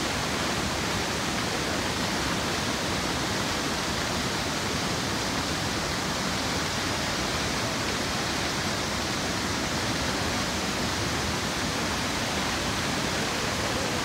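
Iguazu Falls, many cascades pouring over the cliffs: a steady, even rush of falling water with no change in level.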